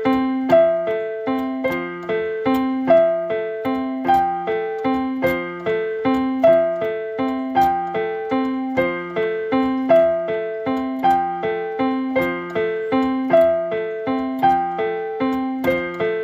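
Background music: a keyboard plays a short figure of notes that repeats over and over at an even pace.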